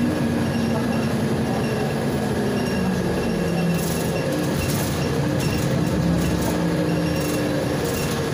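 Inside a Volgabus 5270G2 LNG-fuelled city bus under way: a steady drone from the engine and drivetrain with whining tones over road noise. The whine drops in pitch about three seconds in, and light rattles come in the second half.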